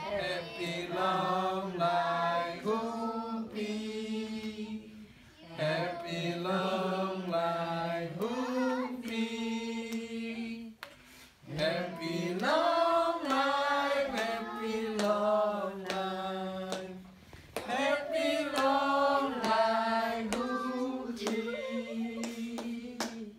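A group of people singing together, several voices in long phrases of held notes with short breaks between them.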